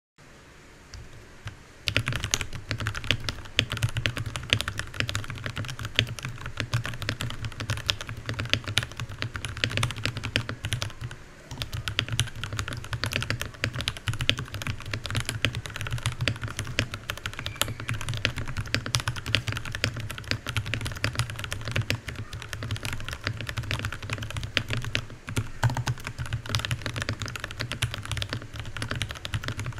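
Fast typing on a Varmilo Minilo 65% mechanical keyboard: a dense, continuous stream of key presses that starts about two seconds in, with a brief lull near the middle.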